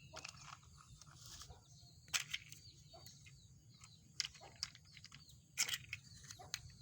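Plastic toy train parts and packaging being handled: a few sharp clicks and knocks, the loudest about two, four and five and a half seconds in. Faint bird chirps sound in the background.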